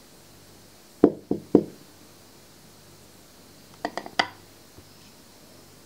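Glass jars knocking on a countertop as they are handled. Three dull knocks come about a second in, then a quick cluster of sharper clinks around four seconds in.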